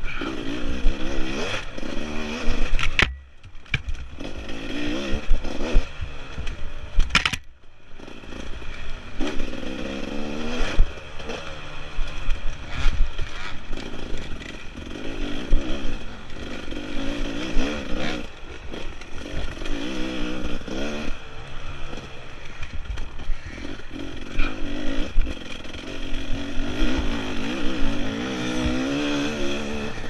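Dirt bike engine revving up and down repeatedly under hard riding, its pitch rising and falling every second or two, with rattles and knocks from the rough trail. The throttle briefly drops off about three seconds in and again about seven and a half seconds in.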